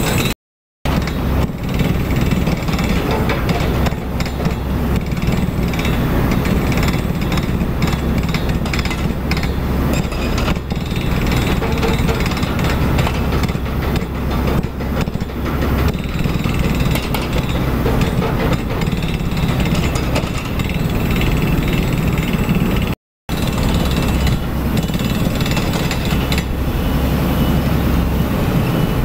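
Heavy construction machinery: diesel engines running under a rapid, continuous mechanical hammering. The sound drops out briefly just after the start and again about 23 seconds in.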